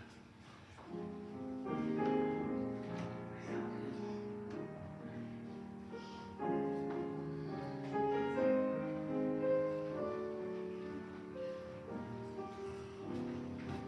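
Instrumental music led by piano, playing held chords that change every second or two.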